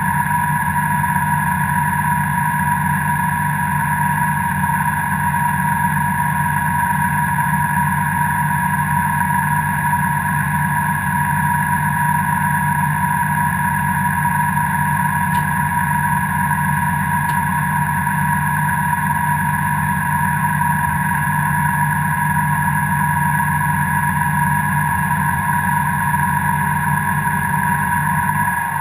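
Tractor engine running at steady revs with a steady whine, holding the same pitch throughout.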